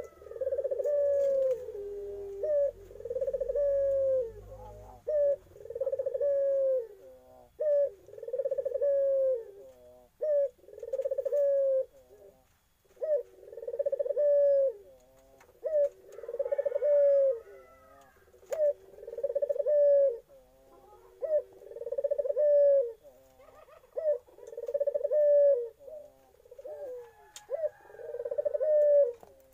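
Young puter Irak dove cooing in a steady series, about one coo every two seconds. Each coo starts on a higher note and drops to a lower one.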